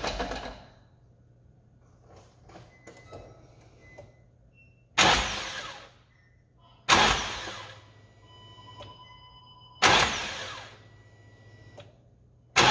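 Nissan 350Z's engine briefly cranked over several times, four short bursts that each start suddenly and die away within about a second. It is turned over to settle the newly tensioned accessory drive belt before its deflection is checked again.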